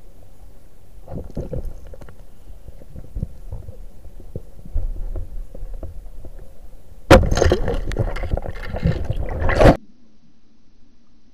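Muffled underwater noise with scattered knocks and clicks from the spearfisher's gear, then about seven seconds in a loud, sudden stretch of rushing, splashing water noise lasting about two and a half seconds that cuts off abruptly.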